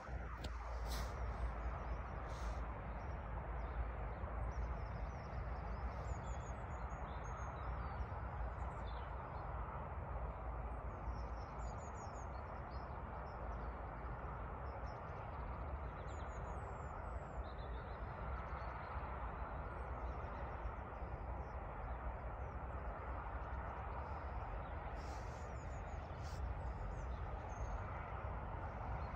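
Small birds chirping now and then over a steady rushing outdoor background with a low rumble.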